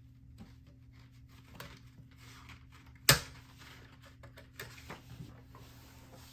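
Light clicks from the metal tab stops of a 1959 Smith Corona Sterling typewriter being set by hand, with one sharp, loud click about three seconds in and a few softer ones after.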